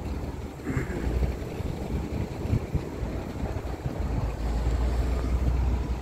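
Wind buffeting the microphone outdoors: a low, uneven rush with no clear pitch.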